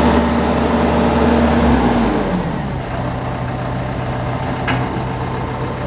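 Heavy diesel engines of earthmoving machines, a vibratory roller and a bulldozer, running steadily. About two seconds in, the engine note shifts lower and eases off slightly.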